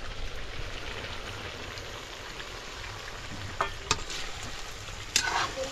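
Meat and masala frying in hot oil in a kadhai, sizzling steadily as it is stirred, with a few short clicks around the middle and near the end.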